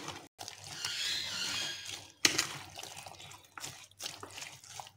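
A spoon stirring a wet mixture of yogurt, chickpeas and shredded vegetables in a plastic bowl, with wet, irregular mixing and stirring sounds.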